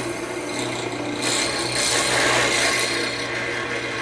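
Power tool cutting a leftover piece of steel to the shifter bracket's angle: a steady, harsh abrasive noise of tool on metal.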